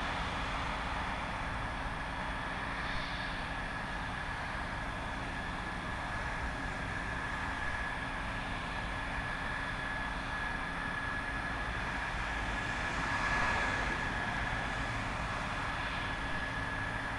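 F-16 Fighting Falcon jet engines running at low power on the runway: a steady turbine whine over a low rumble, swelling briefly about two-thirds of the way in.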